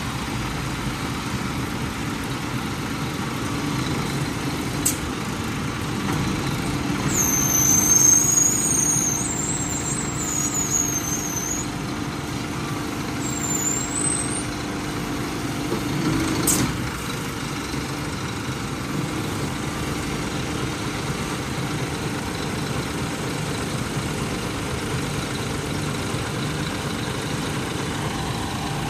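Scania P360 hooklift truck's diesel engine idling while its hydraulic hook arm is raised, with a steady hum from the hydraulics through the middle. There are a few high squeaks partway through, and two short clicks.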